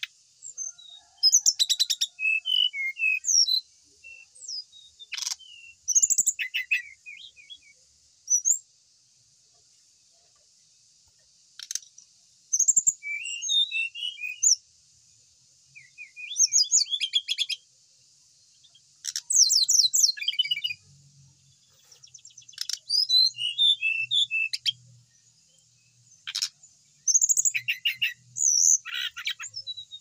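Brown-chested jungle flycatcher singing in repeated bouts of quick rattling trills and short chirped phrases, with gaps of a few seconds between them, over a steady high hiss.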